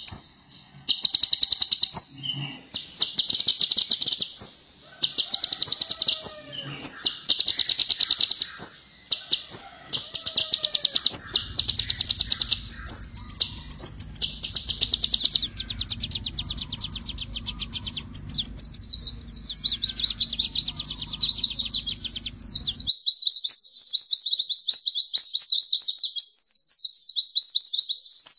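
Purple-throated sunbird (kolibri ninja) singing: rapid, high-pitched trills in bursts about a second long, running into continuous fast chattering made of quick slurred notes in the second half. A faint low hum sits under the middle of the passage.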